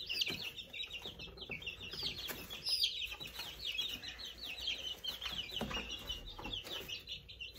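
Young chicks peeping over and over, a quick stream of short high chirps overlapping. A few soft knocks and rustles come from a chick being handled.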